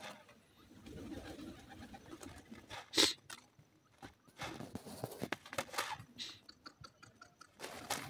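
Grey francolins giving soft, low calls while pecking at dry ground. A few sharp clicks and taps sound, the loudest about three seconds in.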